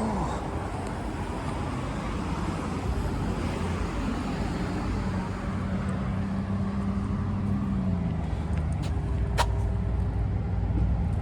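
Steady low rumble of a road vehicle running, with a sharp click about nine seconds in.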